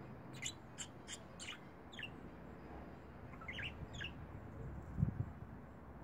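Budgerigar chirping: a quick run of about five short, sharp chirps in the first two seconds, then two or three more around the middle. A single low thump comes near the end.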